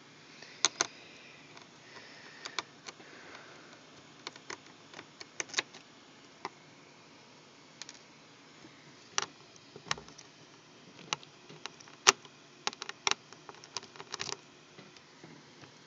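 Irregular light clicks and taps of hands handling small parts over an open laptop keyboard, scattered throughout over a faint steady hiss, the sharpest about twelve seconds in.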